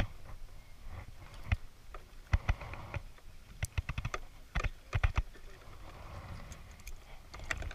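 Irregular sharp clicks and light knocks, some in quick runs of several, a few with a dull thud beneath: the handling of pliers and tackle as hooks are worked out of a freshly caught fish on a small boat.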